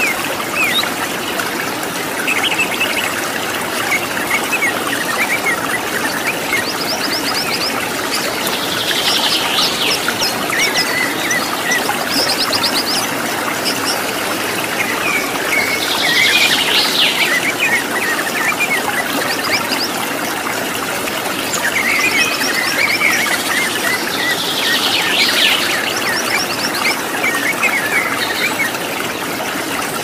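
Steady rush of a waterfall with wild birds calling over it, rapid high trills and chirps coming in clusters several times. It is a nature-sound recording of the kind played to caged songbirds to stir them into singing.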